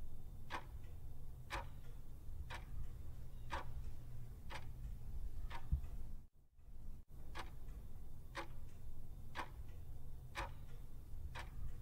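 Clock ticking, about one tick a second, over a low steady hum; the sound drops out briefly about six seconds in.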